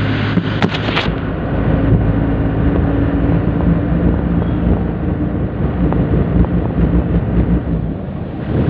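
Steady engine drone and road rumble of a moving vehicle, heard from on board, with a few sharp knocks in the first second.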